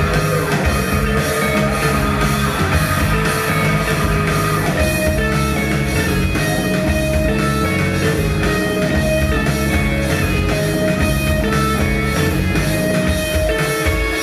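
Rock band playing live: an instrumental passage of guitar over a drum kit keeping a steady beat, with no singing.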